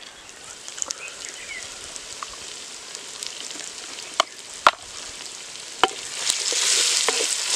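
Shallots, garlic, green chillies and spice powders frying in oil in a clay pot, a steady sizzle with a few sharp clicks in the middle. The sizzling grows louder about six seconds in as the masala is stirred with a wooden spatula.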